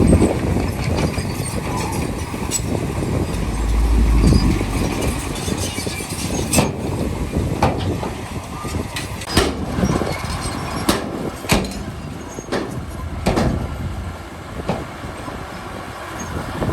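Komatsu D31P crawler bulldozer working: its diesel engine runs steadily under irregular metallic clanks and knocks from the steel tracks. A heavier low surge comes about four seconds in.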